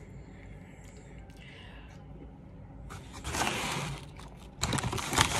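Taco Bell paper bag being handled: a brief rustle about three seconds in, then loud, continuous crinkling from near the end.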